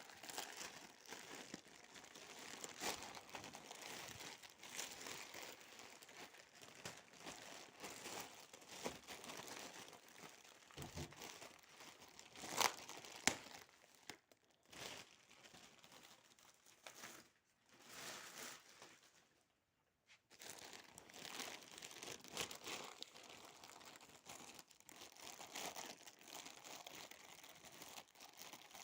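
Parcel packaging being handled and unwrapped by hand: soft, continuous crinkling and rustling with bits of tearing, and a couple of sharper snaps about halfway through.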